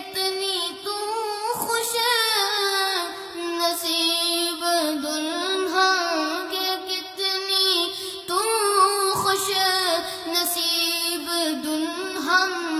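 A boy singing an Islamic devotional song (a manqabat in praise of Aisha) in a single voice, with long held notes that bend and turn in ornamented melodic runs and short breaks for breath.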